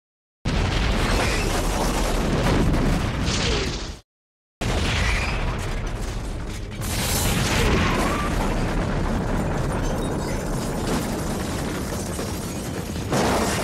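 Action-film explosion soundtrack, edited in hard cuts: one loud explosion that starts suddenly and is cut off after about three and a half seconds, then after a brief gap a second, longer explosion that runs for about nine seconds, with a fresh blast near the end.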